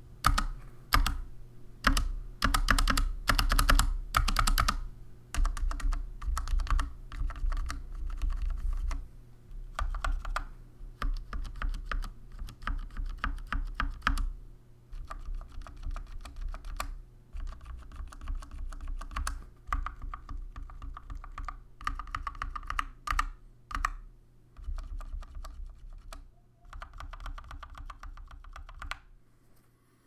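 Skyloong AK84S 75% hot-swap mechanical keyboard with Chocolate Silver switches and stock GK1 PBT keycaps, keys pressed one at a time: a few single loud strokes at first, then runs of quick repeated presses with short pauses between them.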